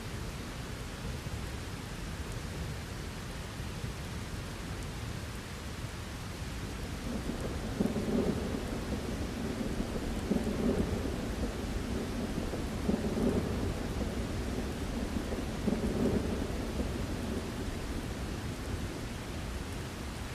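Steady rain falling, with a long rolling rumble of thunder that swells about a third of the way in, pulses several times, then dies away well before the end.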